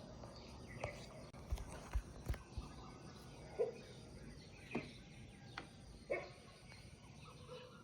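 Short animal calls scattered a second or more apart over steady outdoor background noise, with a few low thumps between about one and three seconds in.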